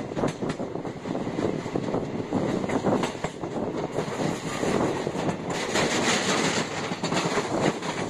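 Passenger train running along the track, heard from inside the coach: a steady rumble with quick, uneven clicks of the wheels over the rails. A rushing hiss grows louder in the second half.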